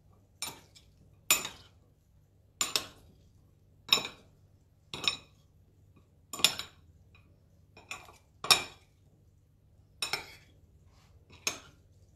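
Metal fork and spoon tossing a salad of raw sliced artichokes in a white ceramic dish, the cutlery clinking against the dish about ten times, a second or so apart.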